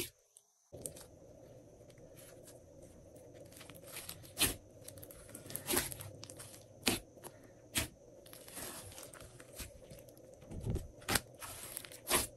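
Glossy slime being squished and stretched by hand: an irregular string of sharp clicks and pops over a faint hiss.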